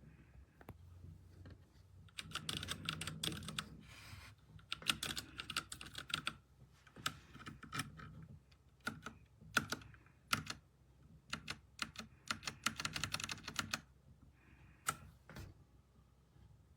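Typing on a TMKB T68SE 60% mechanical keyboard: rapid runs of keystrokes in several bursts with short pauses between them, starting about two seconds in and stopping shortly before the end.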